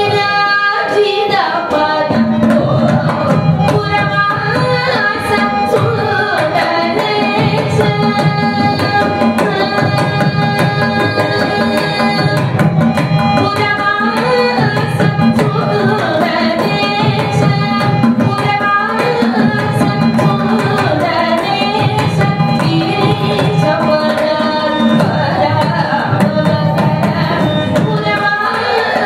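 Carnatic vocal music: a woman singing a devotional kriti in raga Pantuvarali, with long held and ornamented notes, accompanied by mridangam drumming in Adi tala.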